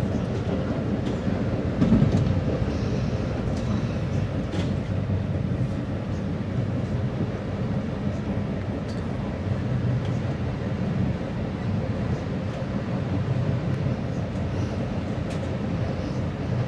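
Commuter train cab car running along the track, heard from inside the cab: a steady rumble of wheels on rails, with a brief louder thump about two seconds in.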